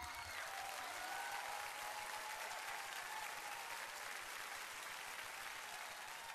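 Audience applauding steadily at a low level, with a few faint voices over it in the first second or so.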